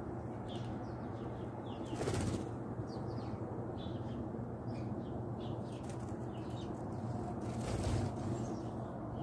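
Wingbeats of a red-bellied woodpecker flying off the ledge about two seconds in, with a second, louder flurry of wingbeats near the end. Short high chirps of small birds come and go throughout.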